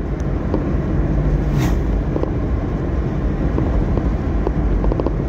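Steady low rumble of engine and tyres heard inside a moving car's cabin, with an oncoming car whooshing past about a second and a half in. A few light ticks sound in the second half.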